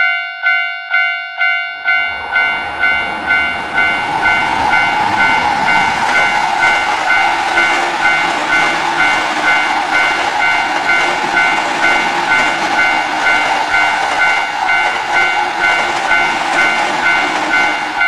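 Japanese level-crossing warning bell ringing about twice a second, with a train running past from about two seconds in; the passing train is the loudest sound and stops near the end.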